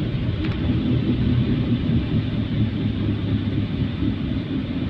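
Car driving on a rain-wet highway: a steady low rumble of road and engine noise.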